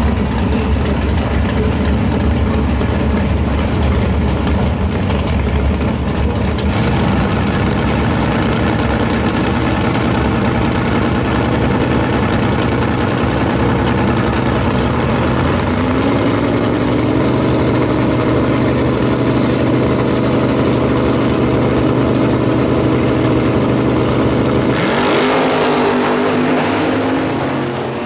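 Two door-slammer drag cars sitting at the starting line with their engines running. About 16 seconds in, one brings its revs up and holds them steady. About 25 seconds in, both launch at full throttle and the engine note climbs and fades as they run off down the strip.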